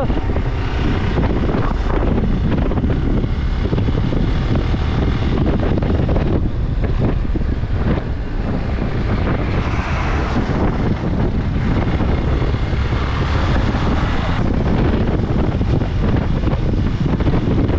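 Hero XPulse 200 4V motorcycle's single-cylinder engine running steadily on the move, mixed with heavy wind rumble on the helmet microphone.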